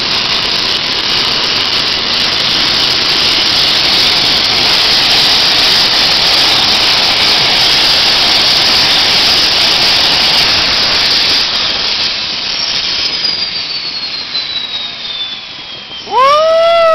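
A Transall C-160's Rolls-Royce Tyne turboprop running on the ground: a loud, steady, hissing roar. From about twelve seconds in the noise eases off and a whine falls steadily in pitch. Near the end a loud, brief tone rises and falls.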